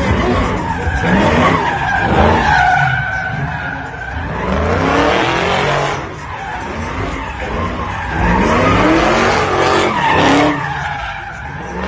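A car doing donuts or a burnout: the engine revs up again and again, several rising sweeps, over the hiss and screech of sliding tyres.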